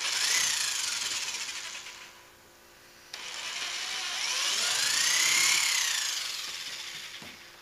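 Power drill with a 1/4-inch bit drilling two holes through a mounting plate and kayak hull. There are two runs: a short one, then after a pause of about a second a longer one. Each time the motor's whine rises as it speeds up and falls as it slows.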